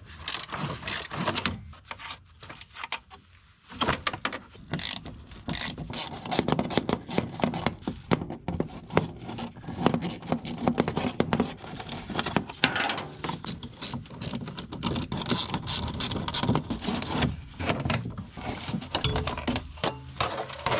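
Hand-tool work under a car: a steady stream of irregular metallic clicks, taps and scrapes as parts and fasteners are handled.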